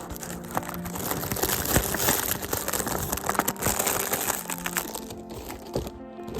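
Perfume packaging being handled and unwrapped: crinkling and rustling with sharp little clicks, over background music.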